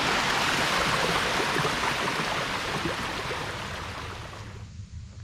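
Rushing water of a waterfall, a steady wash of noise that fades away over the last couple of seconds.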